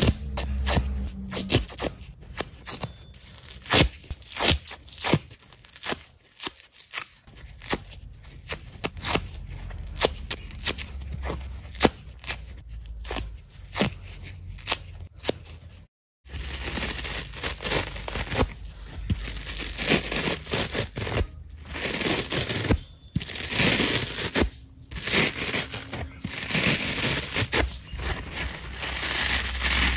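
Dry kitchen foam sponges torn apart by hand: irregular sharp tearing rips as the foam splits into slabs and small chunks. About halfway through, after a brief cut to silence, a denser, continuous scratchy rasp of dry scrub sponges with scouring layers being squeezed and rubbed in the hands, broken by a few short pauses.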